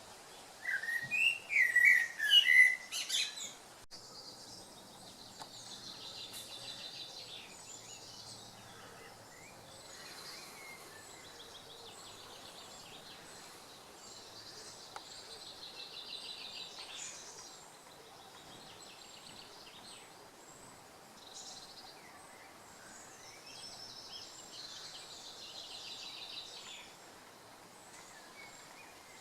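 Woodland songbirds singing: loud, close chirping calls for the first few seconds, then a trilled song phrase repeated every few seconds over a faint steady background hiss.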